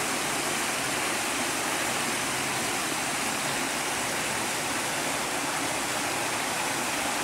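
Steady rush of water flowing through a concrete sluice gate channel.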